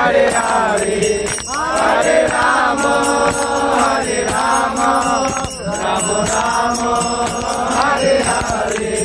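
A group of devotees chanting a kirtan together in held, sliding phrases, with steady hand clapping.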